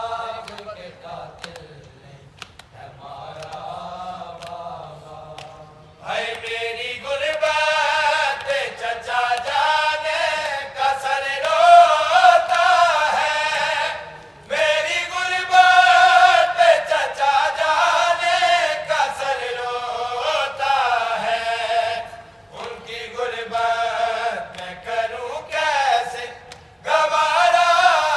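Group of men chanting a noha, a Shia mourning lament, in Urdu. The voices are quieter for the first few seconds and grow loud about six seconds in, with two short pauses between lines.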